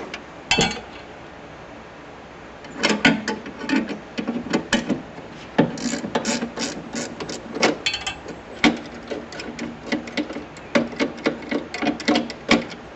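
Irregular sharp clicks and metallic knocks of a ratchet wrench and steel parts being handled as the emergency jack bracket is unbolted from a car trunk. A single click comes first, then a short lull, then several clicks a second until near the end.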